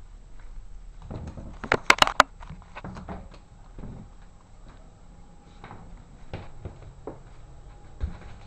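Sharp clicks and knocks: a quick run of four or five loud clicks about two seconds in, then scattered softer knocks and taps.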